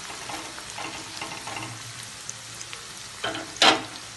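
Chopped onions sizzling as they fry in oil and ghee in a kadai, stirred with a spatula, on their way to light brown. A steady hiss with faint ticks, and two brief louder clatters a little past three seconds in.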